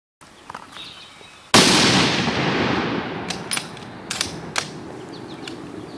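A single rifle shot about a second and a half in, its report echoing and fading away over about three seconds, followed by a few sharp clicks. Faint bird chirps before the shot.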